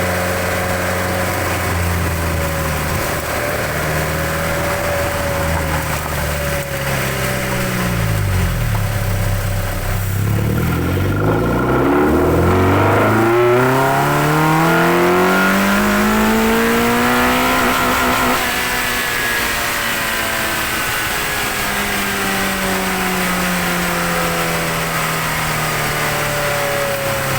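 Mazda MX-5 NC 2.0-litre MZR four-cylinder with a cold-air intake, heard from under the bonnet with loud intake noise. The engine runs at moderate revs, drops briefly, then climbs steadily to high revs over about eight seconds before easing off and slowly winding down.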